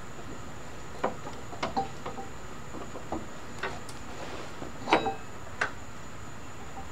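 Scattered light clicks and knocks, about eight in all and the loudest near five seconds in, from hands working a belt around the pulleys under a riding lawn mower's deck.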